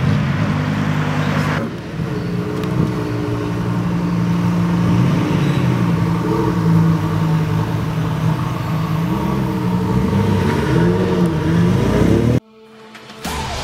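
Lamborghini Huracan Performante's naturally aspirated V10 settling from a rev, then running at low revs as the car pulls away, its note rising and falling gently. The sound cuts off sharply about twelve seconds in.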